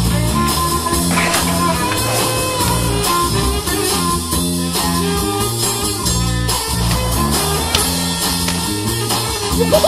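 Background music: a guitar-led track over a bass line that steps from note to note.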